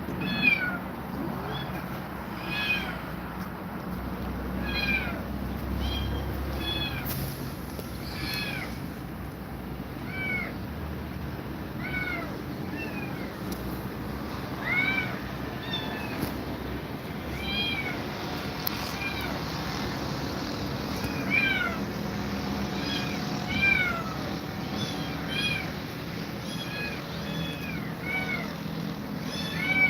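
Kittens mewing over and over: short, high-pitched calls that rise and fall, about one or two a second.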